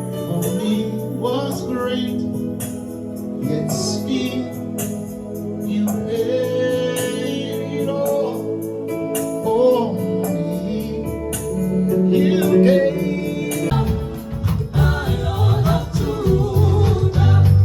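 Gospel worship music with singing over held keyboard chords; a drum and bass beat comes in near the end.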